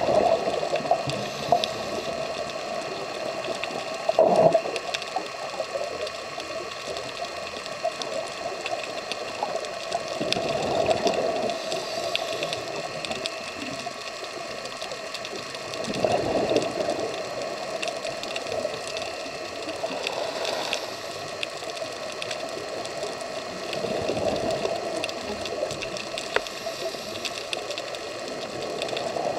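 Underwater sound of a scuba diver breathing through a regulator: exhaled bubbles gush up every four to six seconds over a steady underwater hum.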